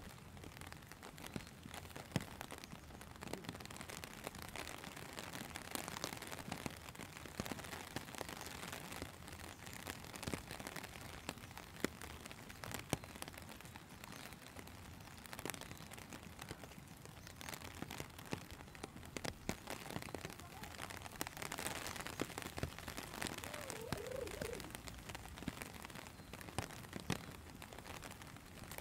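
Steady rain, with many separate drops striking close by.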